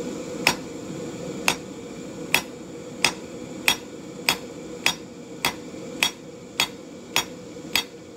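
Blacksmith's hand hammer striking a red-hot half-inch square steel bar on the anvil's edge, about twelve even blows at roughly one and a half a second, each with a short ring, over a steady hum. The blows are setting down the bar to isolate the part that becomes the leaf.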